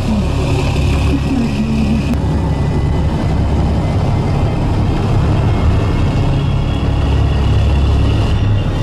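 Police patrol boat's engines running steadily as it cruises, a constant deep rumble.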